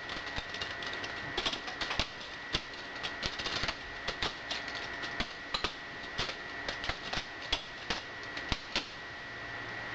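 Spyderco Szabofly balisong being flipped: the handles and latch clack and click in quick, irregular runs as the knife is spun open and closed.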